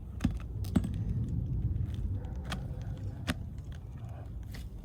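A few sharp clicks and knocks from handling brittle asphalt roof shingles, over a steady low rumble.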